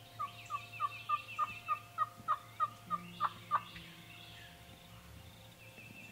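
Wild turkey yelping: a run of about a dozen short, evenly spaced yelps, about three a second, growing louder over roughly three and a half seconds, with a small songbird singing faintly higher up.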